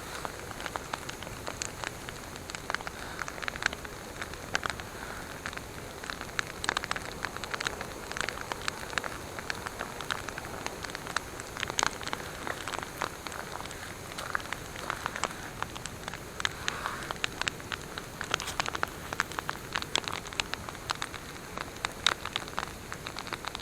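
Wood campfire crackling: irregular sharp snaps and pops over a steady soft hiss.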